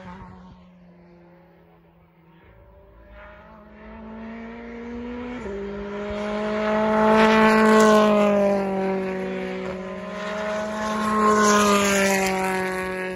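A BTCC touring car's turbocharged two-litre four-cylinder engine at full throttle, growing louder as it approaches, with an upshift about five seconds in. Its pitch falls as it passes, and it fades near the end. The previous car's engine dies away at the start.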